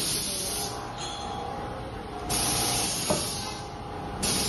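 Semi-automatic paper tray forming machine cycling: a burst of air hiss about every two seconds, each lasting about a second, over a steady machine hum. A sharp knock about three seconds in.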